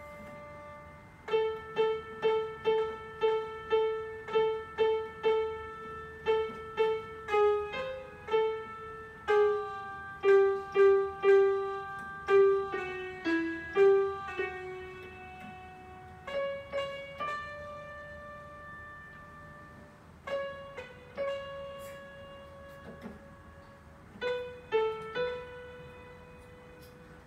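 Portable electronic keyboard played in a piano voice, a single-line melody of a national anthem. It opens with a run of quick repeated notes at about two a second, moves through louder stepping notes, and slows into a few long held notes near the end.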